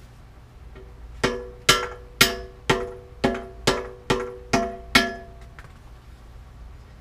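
Hammer blows on a part fitted to a bicycle frame: nine sharp, ringing metallic strikes, about two a second.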